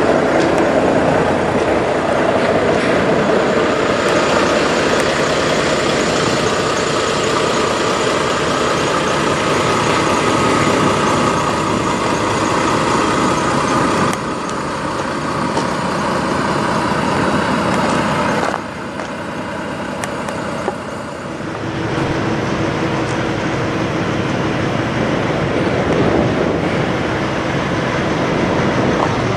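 Diesel engines of long-hood Peterbilt semi trucks running at close range, a loud steady drone that changes abruptly in tone a few times.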